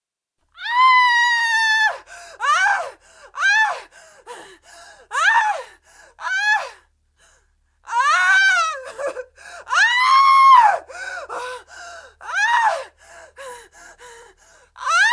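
Woman screaming in terror. A held high-pitched scream comes first, followed by a string of short shrieks that rise and fall in pitch. Gasping breaths fall between them, and two longer screams come in the second half.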